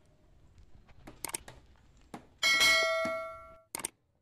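Subscribe-button sound effect: a few soft clicks, then a bright bell ding about two and a half seconds in that rings for about a second before cutting off, and a quick double mouse click near the end.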